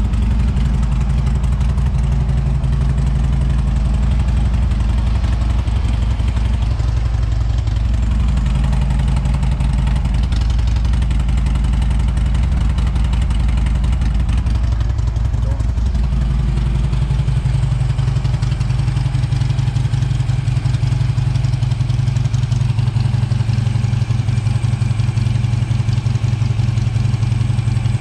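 2015 Harley-Davidson Road King's Twin Cam 103 V-twin idling through its Vance & Hines exhaust, running steadily with the idle wavering slightly a couple of times near the middle.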